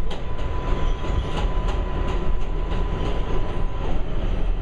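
New York City Subway R188 train running alongside on the elevated line, heard from inside a car: a steady rumble with sharp wheel clicks over rail joints, quick at first and then thinning out, and a steady whine that stops just before the end.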